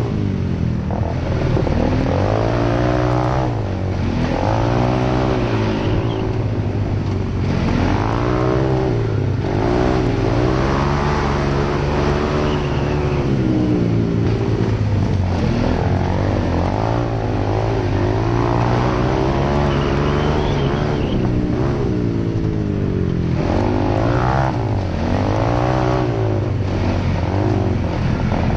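Single-cylinder ATV engine revving up and down over and over on a rough dirt trail, its pitch rising and falling with the throttle every couple of seconds.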